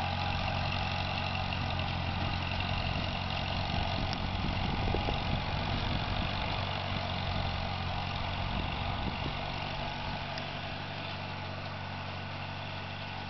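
1952 Massey-Harris Pony tractor's small four-cylinder engine running steadily at low speed as the tractor drives away, growing slowly fainter in the last few seconds.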